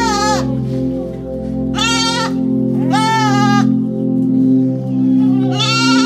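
Goats bleating four times in wavering, pitched calls: one trailing off at the start, two about a second apart mid-way, and another near the end. Steady background music plays under them.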